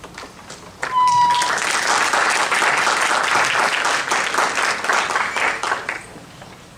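Audience applauding, starting about a second in and dying away near the end. A brief steady high tone sounds just as the clapping begins.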